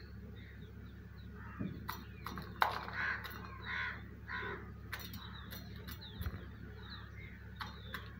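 Crows cawing, three short calls a little under a second apart, mixed with several sharp clicks of a peacock's beak pecking at a steel bowl. The loudest click comes about two and a half seconds in.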